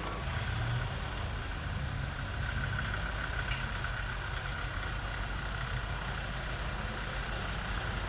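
Vehicle engine idling steadily: a low rumble with a faint steady high whine.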